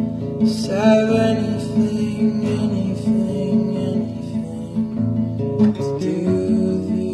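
Background music led by a plucked acoustic guitar, with a steady repeating pulse.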